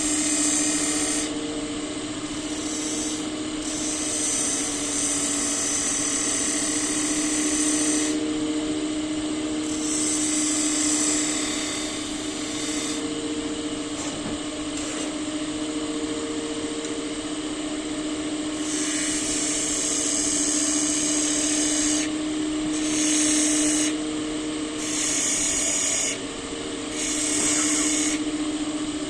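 Wood lathe running with a steady hum while a tool is pressed against the spinning wood in repeated passes, each a hiss lasting one to a few seconds.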